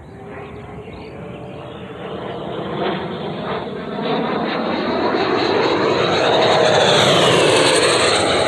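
JETFAN-130 electric ducted fan of an RC jet model flying a pass: its whine and rushing air grow steadily louder, loudest about seven seconds in.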